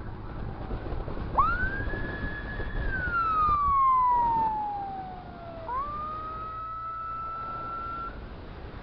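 Electronic vehicle siren: one sharp rise to a high held tone, a long slow fall, then a sudden jump back up to a steady high tone that cuts off near the end, over road and wind noise.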